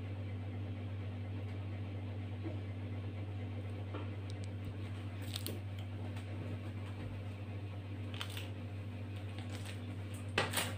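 Steady low electrical hum of room tone, with a few faint clicks and two small knocks near the end.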